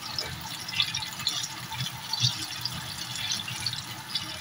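Banana fritters frying in hot oil in a pan: steady sizzling with scattered crackles and pops.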